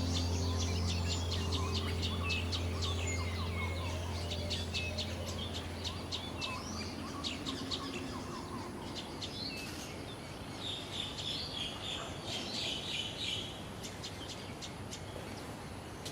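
Songbirds chirping: many short, quick chirps and twitters, dense and overlapping. A low steady hum underneath fades out over the first six seconds or so.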